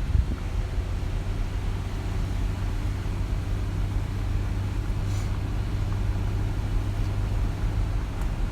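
Steady low drone of a car's engine and road noise, heard from inside the moving car.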